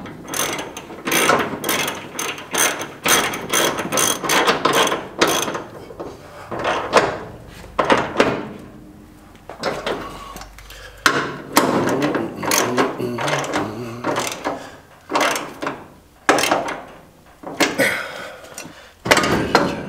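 Hand ratchet wrench clicking in repeated runs of rapid clicks with short pauses, as the Rover 3-Litre's front subframe mounting bolts are tightened.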